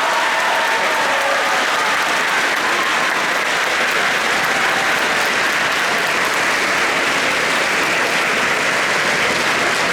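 Large audience applauding steadily and loudly after a performance.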